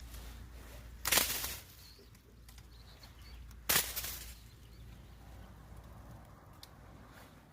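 Two short rustling noises about two and a half seconds apart, over a low steady rumble.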